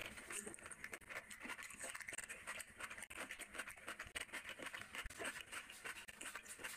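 Close-miked chewing of curry and rice eaten by hand, a dense run of small wet mouth clicks and lip smacks.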